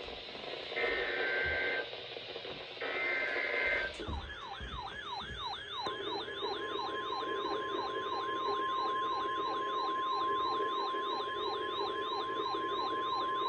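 Two short buzzy bursts of SAME digital header data from an EAS weather radio broadcast. Then, about 4 s in, a siren-like alert starts, sweeping down about three times a second. About 6 s in, the steady 1050 Hz NOAA Weather Radio warning alarm tone joins it and holds on, marking the start of a new warning message.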